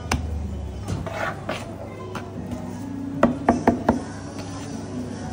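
Hand scraper blade chopping through soft pistachio cheese-dessert dough and knocking on the worktable, with a quick run of four sharp knocks a little after three seconds in.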